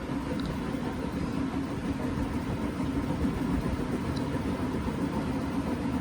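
Washing machine running, a steady hum with a strong low note throughout.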